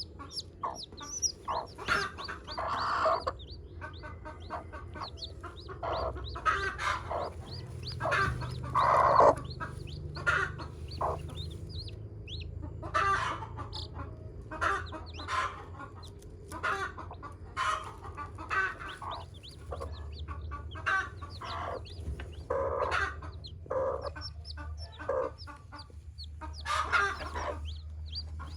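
Brooding hen clucking repeatedly, with thin, high, falling peeps of newly hatched chicks in between and one longer, louder call about nine seconds in. A low steady hum runs underneath.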